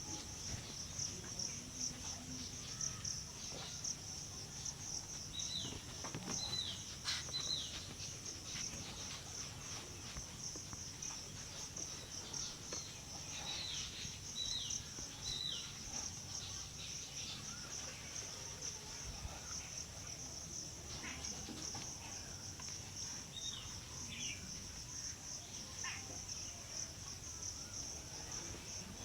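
A continuous high, fast-pulsing insect chirr, with short falling bird chirps in twos and threes now and then.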